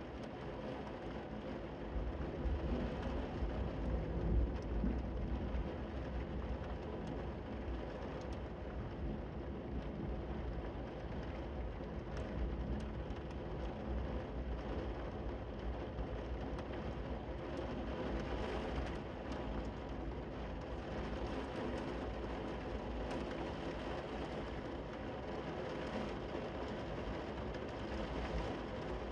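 Heavy rain falling steadily, a dense even hiss with scattered drop ticks. A low rumble swells about two seconds in and fades by about six seconds.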